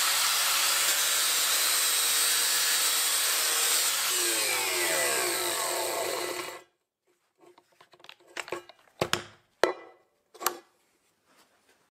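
Metabo angle grinder's abrasive disc grinding a steel plate, then the motor winding down with a falling whine until the sound cuts off suddenly at about six and a half seconds. After that come a few sharp knocks and clicks as the grinder is set down on the steel and its quick-coupling side handle is handled.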